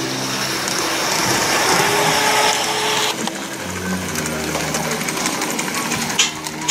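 LGB garden-scale model trains running on outdoor track, a steady whirring and rattling of motor gearing and wheels. The sound changes abruptly about three seconds in, and a few sharp clicks come near the end.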